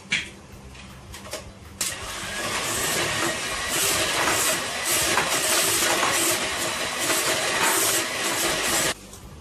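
Handheld electric mixer running, its beaters whisking butter, sugar and egg in a bowl. It switches on about two seconds in, runs steadily, and cuts off suddenly near the end, after a short knock at the very start.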